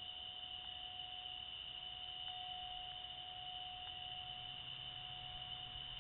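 A chorus of night insects such as crickets: a steady, unbroken high-pitched trill, with a fainter steady lower tone beneath it.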